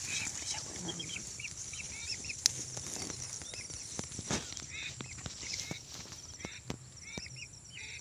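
Short whistled calls of lesser whistling ducks, repeating in small clusters, over a steady high insect trill, with a few sharp clicks between them.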